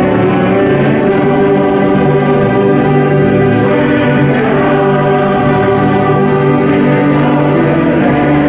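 Mixed choir singing a Danish gospel song in held, steady phrases, accompanied by a small amateur band of guitar, banjo, accordion, fiddle and saxophone.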